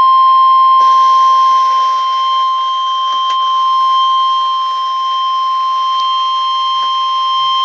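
Weatheradio Canada 1050 Hz warning alarm tone: one long steady beep at a single pitch, with faint radio hiss behind it. It marks the start of a new severe thunderstorm warning broadcast.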